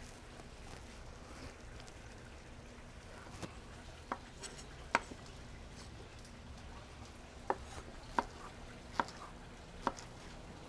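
Chef's knife chopping grilled pineapple on a wooden butcher-block board: about seven sharp knocks of the blade meeting the board, irregularly spaced, starting about three seconds in.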